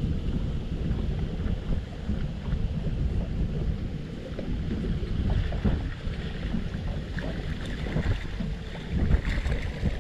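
Wind buffeting the microphone in uneven gusts, a low rumble that rises and falls.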